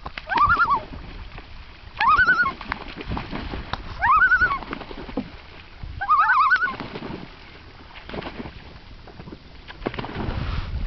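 Common loons calling: four short, wavering calls about two seconds apart, then a low rushing noise that swells near the end.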